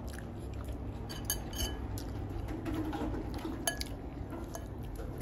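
A metal fork clinks against a plate several times in short separate taps, over a low steady background hum.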